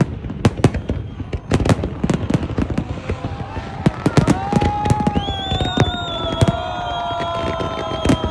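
Fireworks display: a rapid run of sharp bangs from bursting shells. About four seconds in, a long whistling tone with overtones enters and slowly falls in pitch over the bangs.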